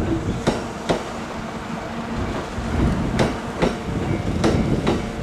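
Wheels of a slow-moving Kintetsu limited express train clicking over rail joints. There are three pairs of sharp clicks, each pair about half a second apart, over a low rumble.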